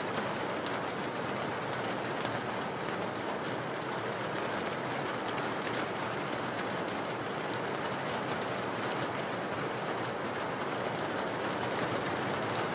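Steady rain falling on window glass: an even hiss dotted with many small drop ticks.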